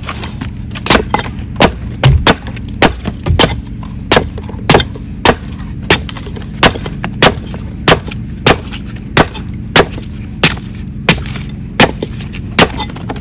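Steel cleaver chopping the husk off a young green coconut on a wooden cutting board: about twenty sharp chops at a steady pace, roughly three every two seconds.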